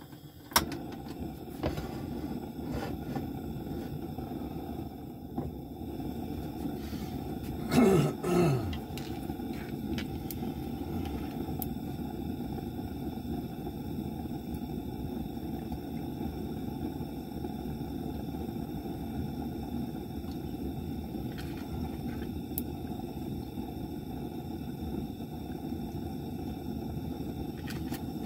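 Portable gas stove burner lit with a sharp click about half a second in, then burning with a steady low rush under the frying pan. A brief falling tone sounds about eight seconds in.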